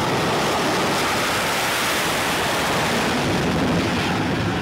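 F/A-18 fighter jet engines running at high power during a launch off an aircraft carrier deck: a steady, even roar.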